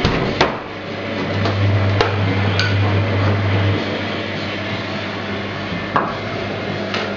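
Several sharp, scattered knocks over a steady low hum that swells for a couple of seconds early on.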